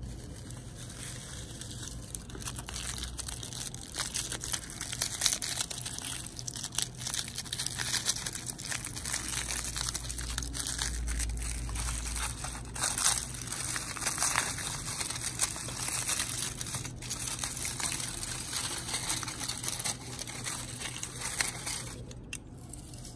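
Crumpled aluminium foil crinkling as a hand unwraps a toy car from it, in irregular crackles that start about two seconds in and stop shortly before the end.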